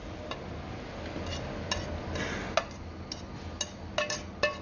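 Metal spoon scraping and tapping against a frying pan as diced avocado is pushed out onto a plate: scattered light clinks, about half a dozen, some ringing briefly.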